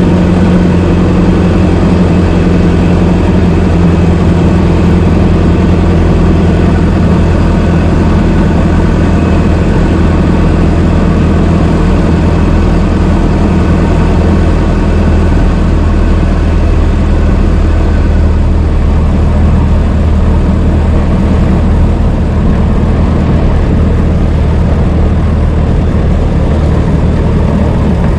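Old car's engine running steadily at a low, even speed, a loud constant hum with no revving.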